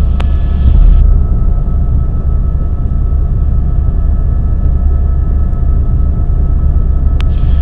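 Steady helicopter cabin drone: deep rotor and engine noise with faint steady whining tones above it, in flight. A sharp click sounds just after the start and another near the end.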